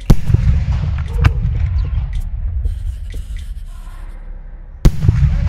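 Two loud bangs, one right at the start and one near the end, each followed by a long low rumble with crackling.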